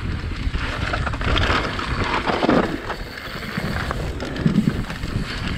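Mountain bike rolling fast down a dirt trail: tyre and trail rumble with irregular knocks from bumps, and wind buffeting the microphone.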